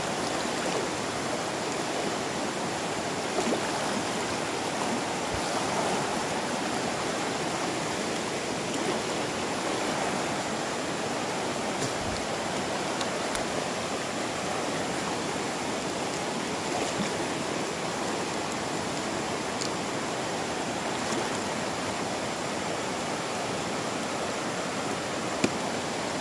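Fast, shallow river rushing over rocks and rapids: a steady, unbroken rush of water.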